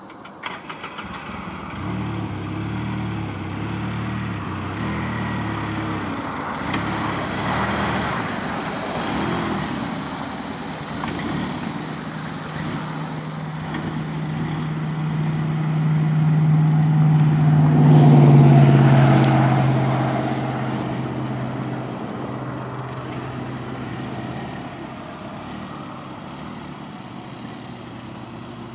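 Side-by-side utility vehicle's engine starting and running as it drives off, the engine note rising and growing louder to a peak about two-thirds of the way through, then fading.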